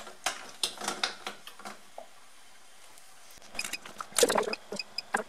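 Light clicks and scrapes of utensils against a stainless steel pot, a short pause, then a busier clatter with the loudest knock about four seconds in.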